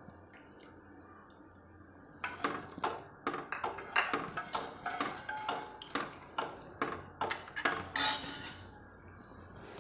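A spoon clinking and scraping repeatedly against a cooking vessel while stirring, a few strikes a second, starting about two seconds in, with the loudest clink near the end.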